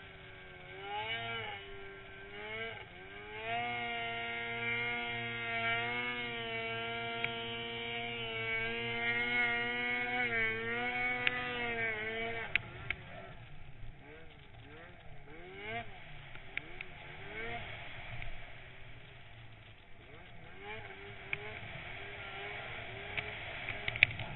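Snowmobile engine revving under throttle, its pitch swinging up and down and then held high for several seconds. About halfway through it drops to a lower, wavering note, with a few sharp clicks.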